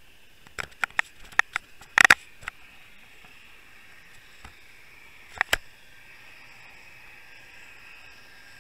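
A run of sharp clicks and knocks, about seven in two seconds, then a close pair a few seconds later, over a steady hiss with faint high tones. They are picked up underwater through the housing of a camera towed just above a bucktail jig.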